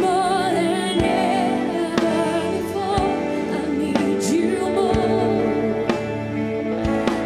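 Live gospel worship music: a singer holding long wavering notes over a band, with a low drum beat about once a second.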